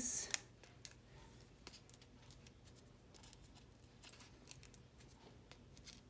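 Fingernails picking and peeling the paper backings off small foam adhesive dimensionals on a cardstock piece: faint, scattered little clicks and crinkles, one a little louder about four seconds in.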